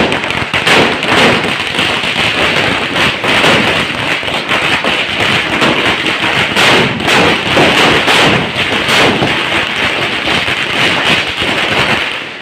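Firecrackers bursting in rapid, unbroken succession, a dense crackle of sharp bangs that keeps going without a pause.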